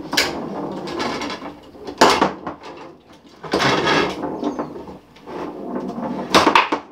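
Foosball game in play: steel rods sliding and rattling through the wooden table's sides, with sharp knocks of the plastic players striking the ball, the loudest about two seconds in and near the end.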